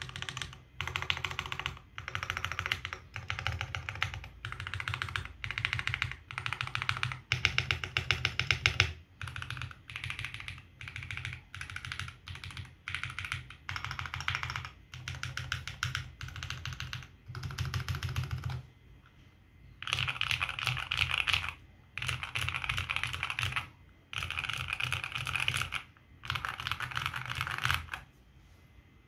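Typing test on a custom 60% mechanical keyboard: KBDFans walnut case with foam dampening, polycarbonate plate and lubed and filmed L&F Alpaca V2 linear switches under HK Gaming keycaps. Fast keystrokes come in runs of a second or two with short pauses between them and stop shortly before the end.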